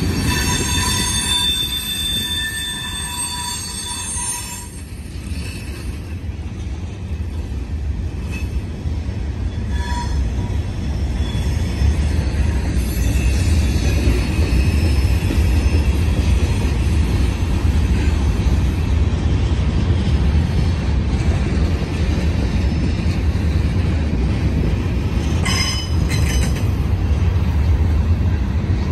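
Union Pacific freight train's tank cars rolling past on the rails: a steady low rumble, with high-pitched wheel squeal through the first four seconds and again briefly near the end. The rumble grows louder about twelve seconds in.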